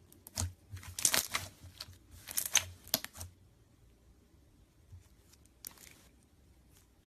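Slime being handled and squished, giving short crackling, crinkling bursts for the first three seconds and then one more short crackle near the end.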